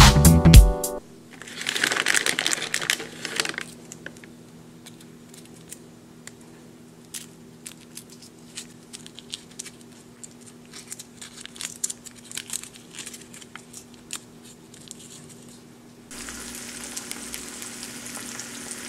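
The tail of a burst of music, which ends about a second in; then the plastic wrapper of a roll of antacid tablets crinkling and crackling as it is picked open by hand. About three seconds from the end, eggs start sizzling in a frying pan.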